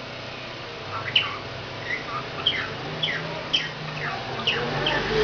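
Pet parrot chirping: a quick string of short, high chirps, each falling in pitch, starting about a second in.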